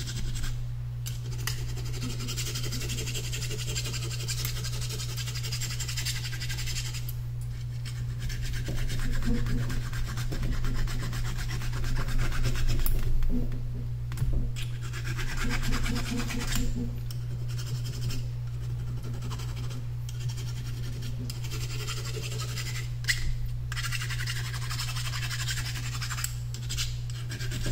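Small hand file scraping along copper bus bars, scuffing off the oxidation to leave shiny spots so the solder will flow and stick. It comes in runs of strokes broken by several short pauses, over a steady low hum.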